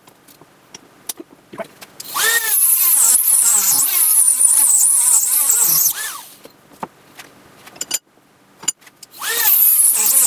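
Dremel rotary tool with a cutoff wheel cutting into the case of a failed motor capacitor held in a vise. It runs in two bursts of high whine that wavers in pitch, the first from about two to six seconds in and the second starting about nine seconds in. Between the bursts there are scattered clicks and knocks as the capacitor is handled.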